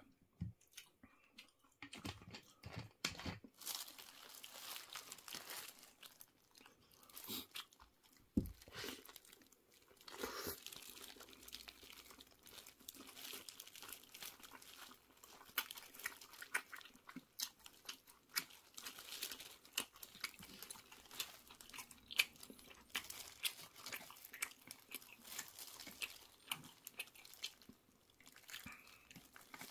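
Close-up eating sounds: a burrito and tortilla chips being chewed and crunched, as a rapid, uneven run of crackles, with crinkling of a plastic glove and the paper wrapper.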